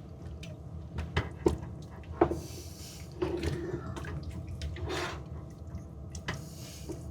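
A utensil clinking and scraping in a pot of bubbling beef stew, with several sharp knocks spread through, over a steady low hum.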